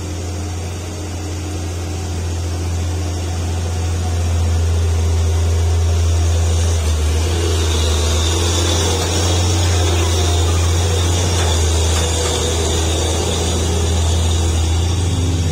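Hino heavy diesel truck's engine running with a steady low drone as the loaded truck crawls past through a hairpin bend, growing louder about four seconds in, with a higher hiss added while it is closest.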